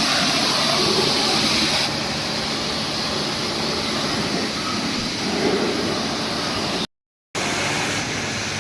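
Pressure-washer water jet spraying a motorcycle with a steady hissing rush. It drops a little about two seconds in and breaks off for a moment near the end.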